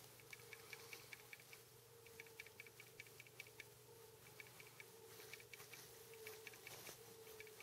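Near silence: a faint steady hum with runs of soft, rapid ticks, about seven a second, that stop and start every second or so.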